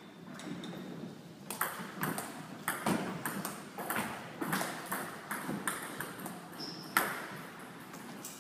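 Table tennis rally: the celluloid ball clicking off the bats and bouncing on the table, two or three sharp knocks a second, starting with the serve about a second and a half in. The loudest knock comes near the end, as the point finishes.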